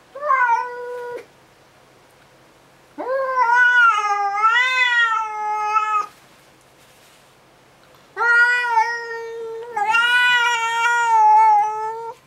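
Domestic house cat yowling in long, drawn-out wavering cries: a short one at the start, then two long ones of about three and four seconds. It is the agitated, defensive caterwaul of a cat facing a stray cat outside the window.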